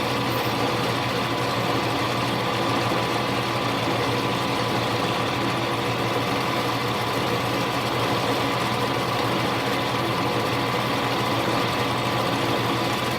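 Mini metal lathe running steadily in high gear, an even mechanical hum with a steady whine.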